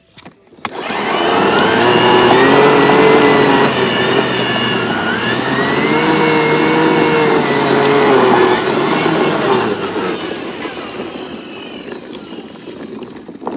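An engine revving sound that rises and falls in pitch twice. It starts about half a second in and fades away over the last few seconds.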